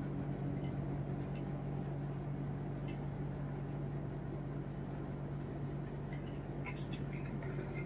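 Steady low mechanical hum with a faint even hiss behind it, broken by a few faint ticks and one short sharp click near the end.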